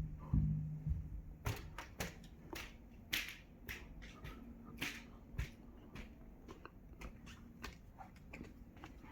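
Scattered light clicks and taps, irregular and about one or two a second, over a faint low hum.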